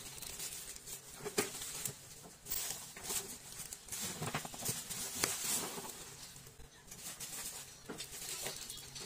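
Plastic courier mailer bags and a bubble-wrapped parcel rustling and crinkling as they are handled, with irregular crackles.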